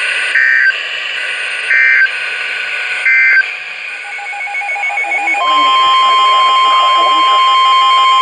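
Three short two-tone digital data bursts about a second and a half apart over radio hiss: the EAS end-of-message (SAME) bursts closing an alert. A fainter pulsing tone follows, then about five seconds in the steady single-pitch 1050 Hz NOAA Weather Radio warning alarm tone starts and holds, the signal that a new warning is coming.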